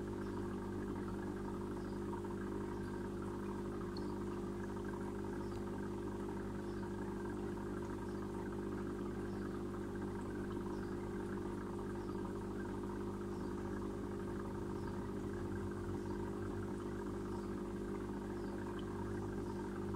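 Steady hum of running aquarium equipment, with several fixed low tones. Faint high chirps repeat about once a second above it.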